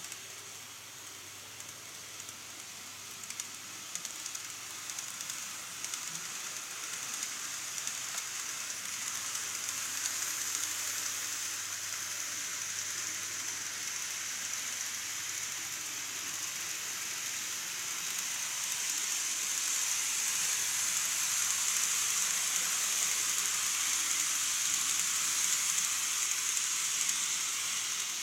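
N-scale model train running on its track: a steady high hiss of small wheels on the rails and the little motor, growing louder in the second half.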